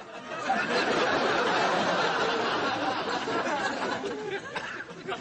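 Studio audience laughing: the laughter swells about half a second in, holds, and eases off near the end.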